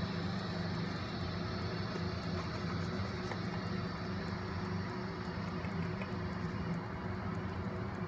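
Steady low machine hum, with a few faint light ticks over it.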